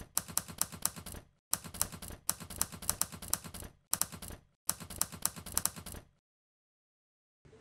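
Typewriter key clacks as a sound effect: rapid runs of strikes in short groups with brief gaps between them, stopping about six seconds in.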